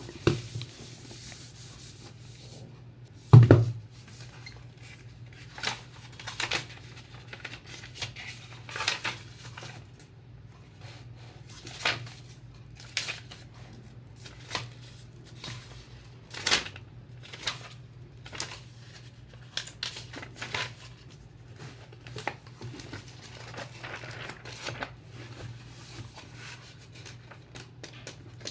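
Books and their packaging handled by hand: scattered rustles, crinkles and light taps, with one heavy thump about three and a half seconds in, over a low steady hum.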